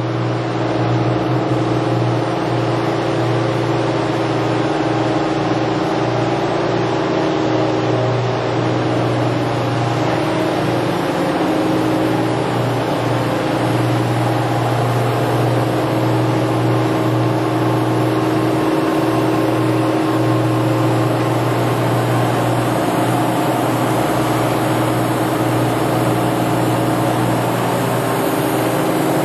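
Steady mechanical hum of a powered-up Toshiba MPF-2114C bridge-type vertical machining center, a strong low drone with several steady tones above it, unchanging throughout.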